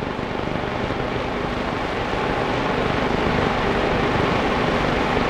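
Steady rushing noise with a faint low hum underneath, growing slightly louder.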